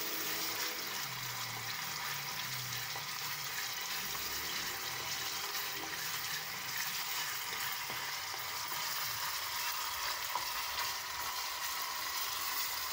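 Tomato-paste sauce in oil with garlic sizzling steadily in a small saucepan while it is stirred with a spoon; the sauce is nearly done.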